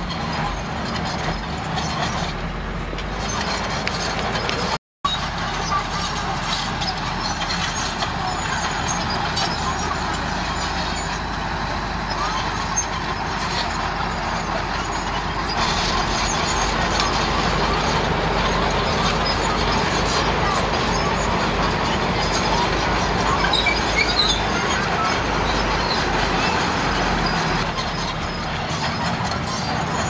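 Komatsu D31A crawler bulldozer's diesel engine running steadily under load as it pushes rock fill, with clatter from the tracks and stones. The sound cuts out for a moment about five seconds in.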